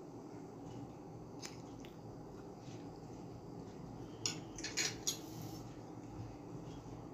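Metal fork and spoon clinking and scraping against a ceramic dinner plate while eating, with one clink about a second and a half in and a quick run of sharper clinks about four to five seconds in, over faint steady room noise.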